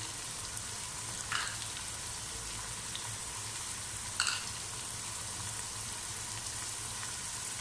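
Onion-tomato masala frying in oil over medium heat: a steady sizzle, with two short clicks about a second and a half in and about four seconds in.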